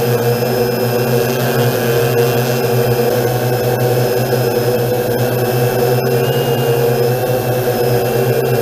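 Multirotor drone's electric motors and propellers running steadily, heard from the drone's own camera: a constant loud hum with a layer of higher whining tones.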